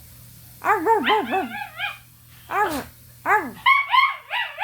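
Dog giving excited, wavering whining yips in three bursts, the last burst pitched higher.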